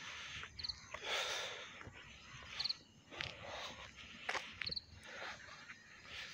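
Cricket chirping, a short burst of three or four quick pulses about every two seconds, over faint scuffing of footsteps.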